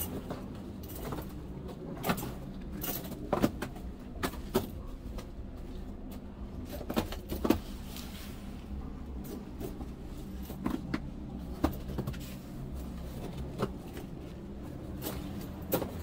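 Footsteps on snow-covered river ice: irregular crunches and knocks every second or two, over a steady low rumble.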